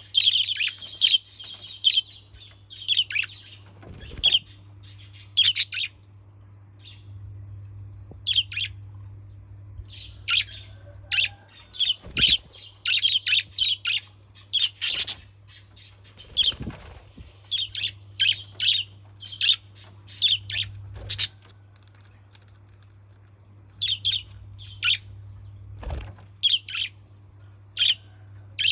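Budgerigars chirping and chattering in short, irregular bursts of high notes, with a few soft thumps and a steady low hum underneath.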